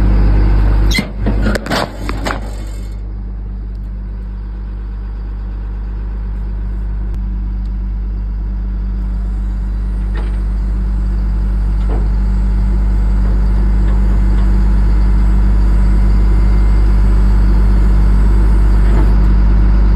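Ford F-650 box truck's engine idling steadily, a low even drone that grows slowly louder. A few sharp knocks and rattles come in the first two seconds or so.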